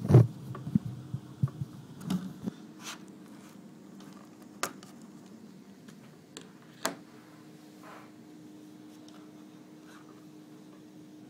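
Handling noise of a Kindle e-reader and its aluminium case: a quick run of small clicks, taps and light scrapes, then two sharper single clicks a few seconds apart. A faint steady hum begins with the second click.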